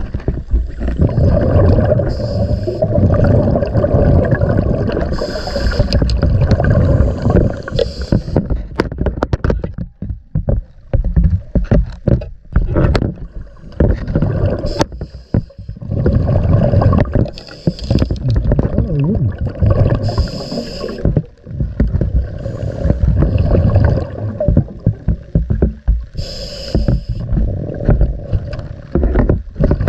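Scuba diver breathing underwater through a regulator: a hissing inhalation every few seconds and bubbling, rumbling exhalations. There is a quieter spell with scattered clicks about a third of the way in.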